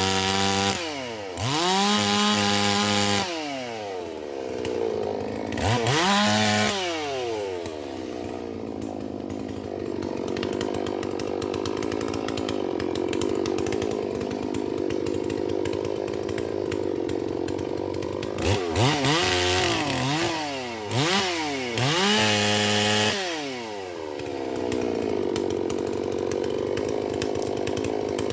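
Holzfforma G444 two-stroke chainsaw, a Stihl MS440 clone, idling and being revved with the throttle. It is revved up and held briefly twice near the start, settles to a steady idle, then gets several quick throttle blips and one more short held rev about two-thirds through before dropping back to idle.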